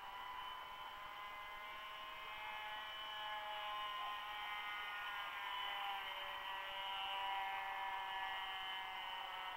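Radio-controlled high-wing model airplane's motor and propeller whining, heard from a camera on board. Several steady tones drift slowly in pitch, and the sound gets a little louder from about three seconds in.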